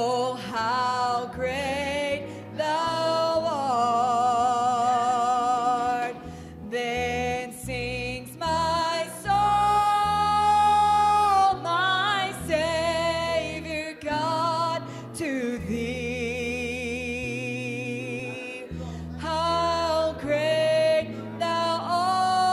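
Live worship music: a woman singing into a microphone with strong vibrato and long held notes, the longest about halfway through, over a steady low instrumental accompaniment.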